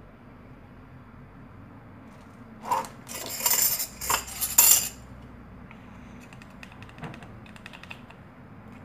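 Hard objects clinking and clattering in a burst of about two seconds, about three seconds in, followed by a few faint light ticks.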